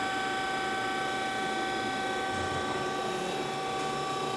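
Mitsubishi RB32 CNC cylindrical grinder running under power, a steady whine made of several constant tones with no change in speed.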